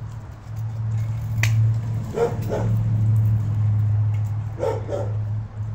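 A dog barking in quick pairs, three double barks a couple of seconds apart, over a loud steady low hum. A sharp click sounds about a second and a half in.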